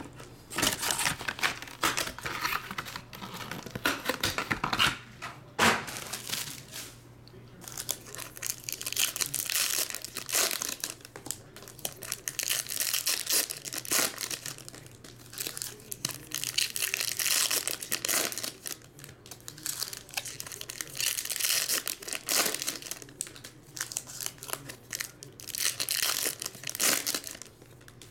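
Foil wrappers of 2017 Topps Chrome baseball card packs being torn open and crinkled, pack after pack, in irregular bursts with short pauses between.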